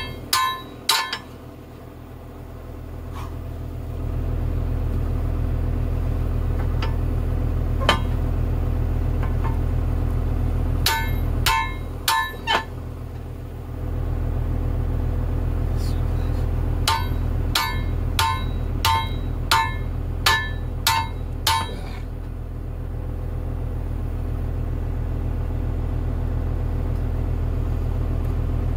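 Small sledge hammer striking the steel parts of a Case 450 dozer's track idler and tensioner assembly, with ringing metal-on-metal blows. There are a few scattered blows, a quick group of four about eleven seconds in, and then a run of about nine blows at roughly two a second before they stop. A steady low hum continues underneath.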